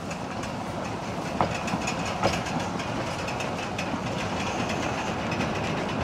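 Narrow-gauge train coaches rolling past close by, the wheels clattering on the rails in a steady rumble, with two sharp clanks about one and a half and two and a quarter seconds in.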